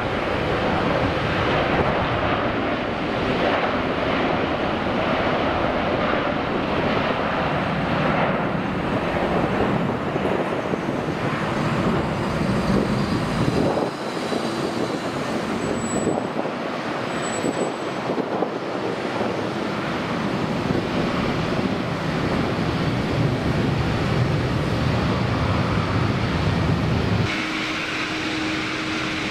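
Twin-engine widebody jet airliner (Airbus A330) at takeoff thrust: a steady engine roar through the takeoff roll and liftoff. Near the end it changes to a Dash 8 turboprop airliner on approach, with a steady propeller hum.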